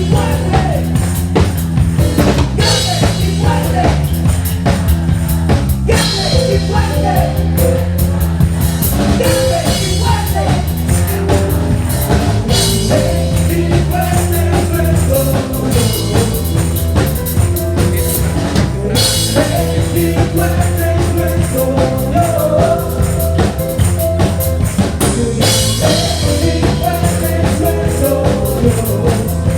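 Live band playing rock-style worship music, with a drum kit keeping a steady beat under bass and melodic instruments.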